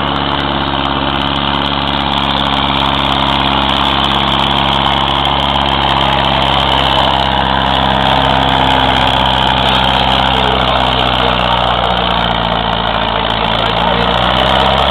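Farm tractor's diesel engine running hard under full load as it drags a tractor-pulling sled, a loud steady drone. Its pitch sags slightly near the end as the load builds.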